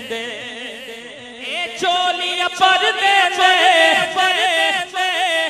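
A male devotional singer's voice through a handheld microphone, singing a drawn-out, ornamented manqabat line with wavering held notes. It is softer for the first second or so and swells louder about two seconds in.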